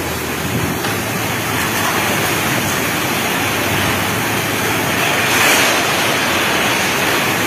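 Torrential rain driven by storm-force wind: a loud, steady rushing noise that swells in a stronger gust about five and a half seconds in.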